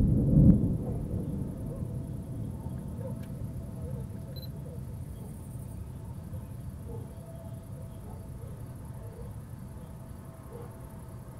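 Thunder rumbling low and dying away over the first few seconds, leaving a faint, steady low background.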